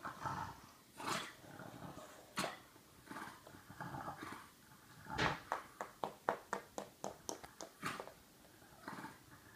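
French bulldog growling in short spells. About halfway through comes a quick run of sharp clicks, roughly four or five a second, for a couple of seconds.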